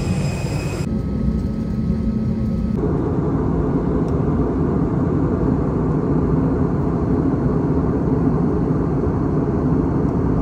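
Airliner cabin noise in flight: a steady low roar of engines and rushing air. It follows two brief cuts in the first three seconds, each carrying a faint steady high tone.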